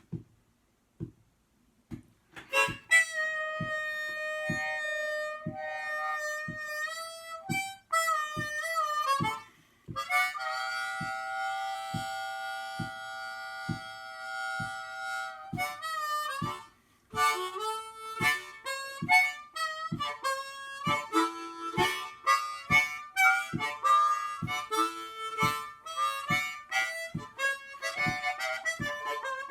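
Harmonica playing over a low beat about twice a second. The harmonica comes in about two and a half seconds in with long held chords. It breaks off briefly twice and then turns to quicker, choppier phrases.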